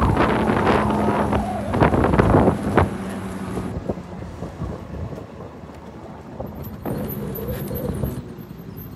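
Strong gusty wind buffeting the phone's microphone, heaviest in the first three seconds, then dropping to a lighter rush.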